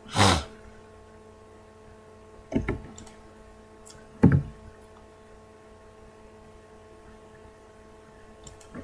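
Steady electrical hum picked up by the microphone. A short rush of noise comes just after the start, and two brief knocks come about two and a half and four seconds in.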